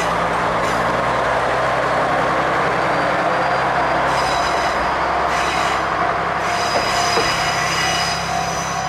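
KiHa 120 diesel railcar passing close by, its engine running under a loud rush of wheel noise, with high thin wheel squeal from about four seconds in.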